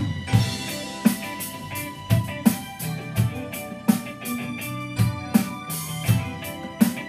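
Live rock band playing an instrumental passage: a drum kit keeping a steady mid-tempo beat, about three hits every two seconds, under electric guitar and sustained keyboard tones, with no singing.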